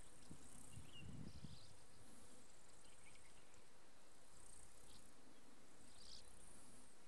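Insects trilling faintly in grassland: a high, thin hiss that swells and fades in short bursts about once a second.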